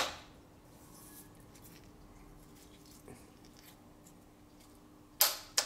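Small machined steel parts handled and knocked against the milling machine's vise: a sharp click at the start, a few faint ticks, and two loud sharp clicks about half a second apart near the end, over a faint steady hum.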